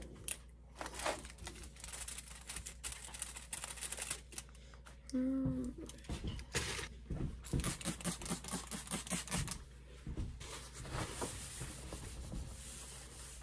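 Kitchen handling noise: irregular clicks, knocks and rustles of things being picked up and set down on a counter, thickest a few seconds after the middle, with a brief low tone about five seconds in.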